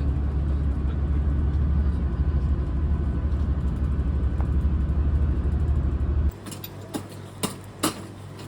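Bus engine and road rumble heard from inside the moving bus, steady and low. About six seconds in it cuts off abruptly to a much quieter background with a few light clicks and knocks.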